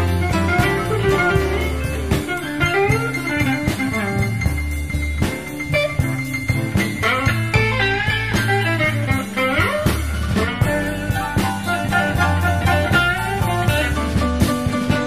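Instrumental break of a 1979 Chicago blues band recording: electric guitar soloing with bent notes, including one long held high note a few seconds in, over walking bass and a drum kit.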